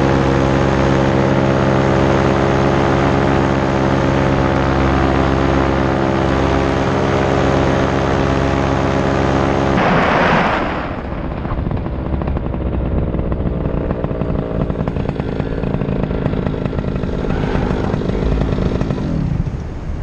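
Paramotor engine and propeller running steadily at cruise power, heard close up. About halfway through the throttle comes back and the steady drone gives way to wind rushing past the microphone, with only a weak, uneven engine sound left as the paramotor glides down toward the runway.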